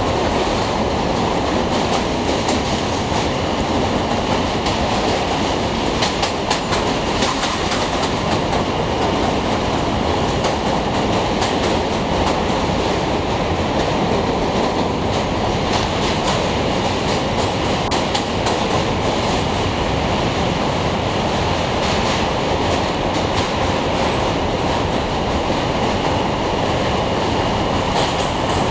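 New York City subway train running alongside at speed: a steady rumble of steel wheels on the rails, with frequent clacks over rail joints, heard from inside a moving car.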